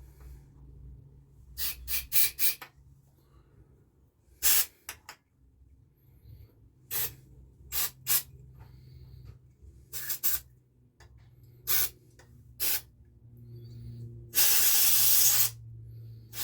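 Aerosol brake cleaner sprayed in short hissing blasts into a Homelite chainsaw's carburettor to flush its passages, ending with one longer spray of about a second.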